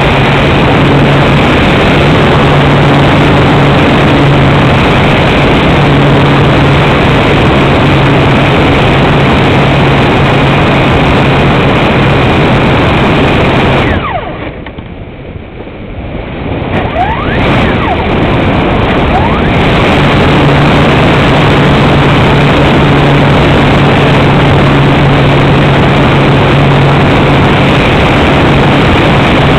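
Motor and propeller of a radio-controlled glider heard from an onboard camera, a loud steady drone mixed with rushing air noise. About fourteen seconds in the power is cut and the sound drops away for a few seconds, then the motor spools back up with rising whines and the steady drone returns.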